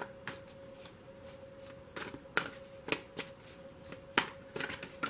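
A deck of tarot cards being shuffled by hand, giving irregular sharp snaps and riffles as the cards slap together, with a few louder clusters near the end.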